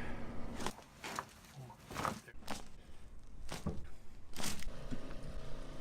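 Joints cracking during chiropractic upper-back adjustments: about half a dozen short, sharp pops and clicks, each standing alone about a second apart.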